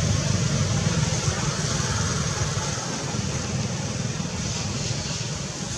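Steady outdoor background noise: a low rumble with a fainter high hiss above it, easing slightly in the second half.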